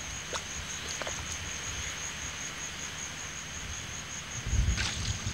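Steady high-pitched insect trill, typical of a mangrove chorus. A brief low rumble and scuff come near the end.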